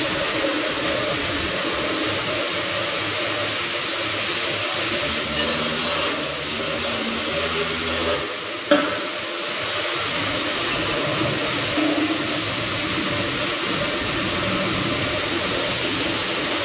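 Arc welding on a steel beam: the arc runs steadily, breaks off a little past halfway with a short dip and one sharp click, then the welding carries on.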